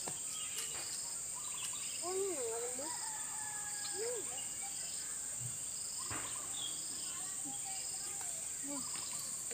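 Steady high-pitched drone of insects, with a short higher chirp repeating about once a second.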